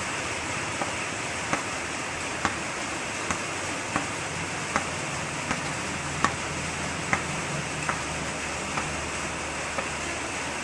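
A tennis ball tapped repeatedly against the face of a hard-tennis cricket bat: about a dozen sharp knocks, a little under one a second, over a steady background hiss.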